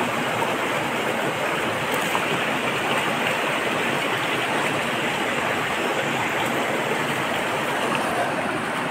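Shallow, rocky river flowing fast over stones: a steady, even rush of water.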